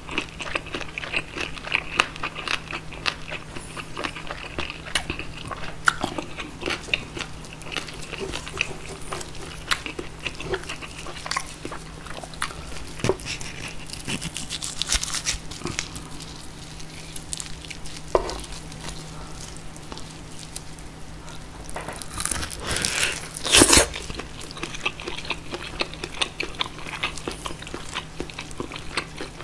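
Close-miked chewing and crunching of roast pork knuckle with crisp crackling skin, full of small wet and crackly clicks. Later a knife and gloved hands cut and tear the meat from the bone, with one loud crunching, crackling burst about three-quarters of the way through.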